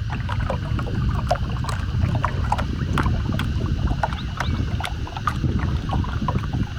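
Bamboo raft being paddled across a lake: irregular splashes and drips of the paddles in the water, over a steady low rumble of wind on the microphone.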